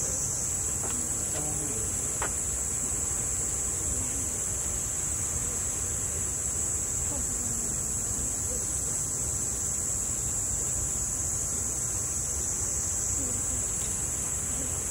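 A chorus of cicadas buzzing steadily at a high pitch, over the low rush of a waterfall and splashing pool water.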